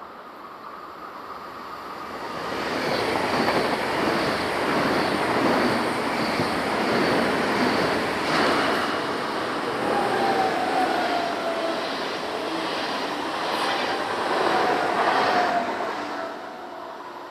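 A train passing close by: the rumble and rush of wheels on rail build up, stay loud for about thirteen seconds, then fade near the end. In the second half a thin wheel squeal slides slightly lower in pitch.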